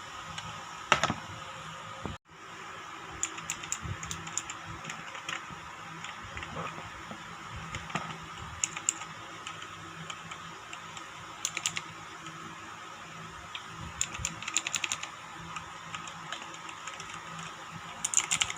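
Leaven K660 mechanical keyboard with red linear switches being typed on in short bursts of keystrokes separated by pauses.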